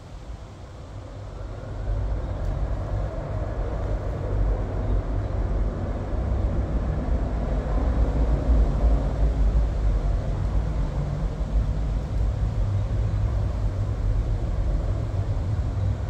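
Low motor-vehicle engine rumble that builds about two seconds in and stays loud, swelling toward the middle, like traffic passing close by.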